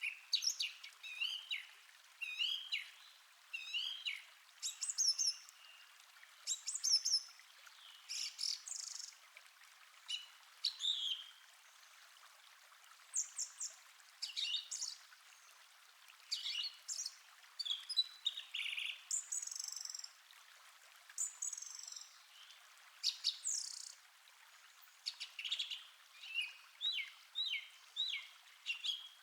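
Several forest birds chirping and singing in short, quick phrases, one after another, over a faint steady hiss of a calm stream.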